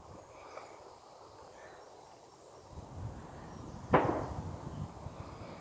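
A single shotgun shot about four seconds in, with an echoing tail that dies away over a second or so.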